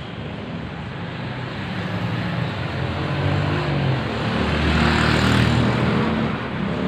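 Street traffic: a motor vehicle's engine draws near and passes close by, loudest about five seconds in.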